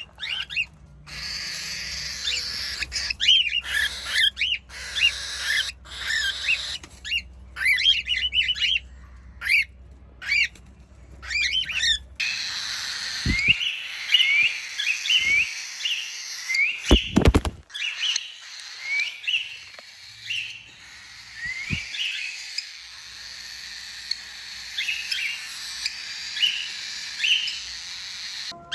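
Cockatiels chirping, many short rising calls overlapping throughout. A low steady hum runs under the first twelve seconds, and a couple of loud dull knocks come near the middle.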